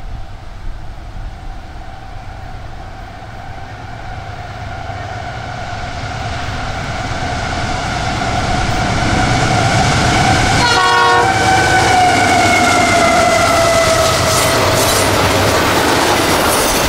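Freight locomotive air horn sounding a long salute as the train approaches, growing louder, then dropping in pitch as the engines pass. The horn fades into the rumble and clatter of the train's wheels.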